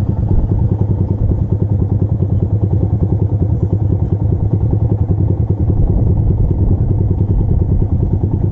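Motorcycle engine running steadily while riding, a loud low throb with fast even pulses.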